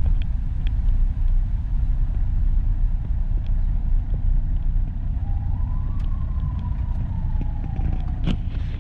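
Steady low rumble of a Mitsubishi Pajero on the move. From about five seconds in a faint whine rises and then slowly falls, and a sharp click comes near the end.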